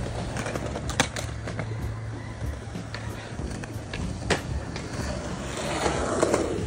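Skateboard wheels rolling on concrete, with sharp clacks of boards against the ground about a second in and again past four seconds. The rolling grows louder near the end as a skater passes close.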